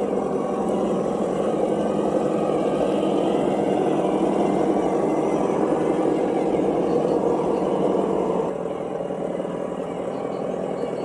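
Simulated engine sound from a Reely sound module, played through the speaker of a Traxxas TRX4 Bronco RC crawler, running steadily and dropping in level about eight and a half seconds in.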